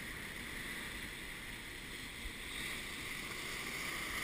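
Ocean surf breaking and washing over a flat rock ledge, a steady rush of churning water and foam, swelling a little near the end as a wave floods the rocks.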